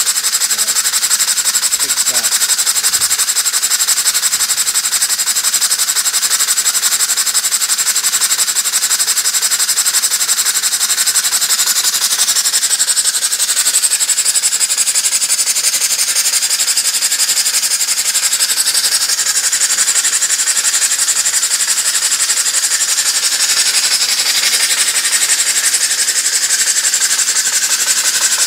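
Home-built stationary steam engine running fast on compressed air, with a lot of steady exhaust noise: a loud hiss of rapid exhaust puffs from an exhaust port that the builder says should have been larger.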